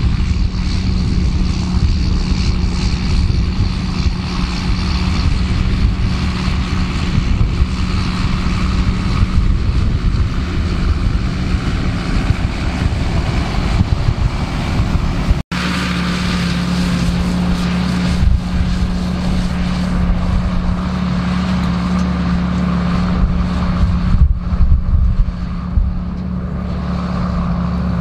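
John Deere 7810 tractor's six-cylinder diesel engine running steadily under load while pulling a spring-tine cultivator. There is a brief break in the sound about halfway through, and then the same steady engine note carries on.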